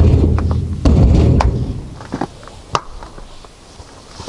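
Two heavy thuds with a low rumble, the second just under a second after the first, followed by a few lighter knocks.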